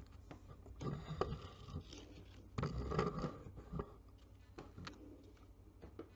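Handling noise: small knocks, rubs and scrapes as the camera is moved and a plate is shifted on a wooden counter, with a louder bump about three seconds in.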